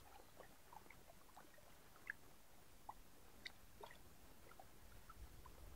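Near silence, with a small click at the start and a few faint, scattered ticks.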